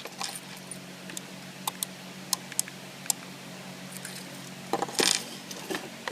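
Sharp small plastic and metal clicks from remote-control buttons being pressed and the units being handled, a few single clicks then a short clatter about five seconds in, over a steady low electrical hum.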